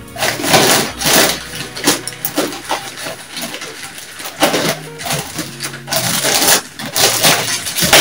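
Pine-needle substrate being stuffed by hand into a clear plastic bag: the needles and the plastic rustle and crackle in repeated bursts, about one every half second to second.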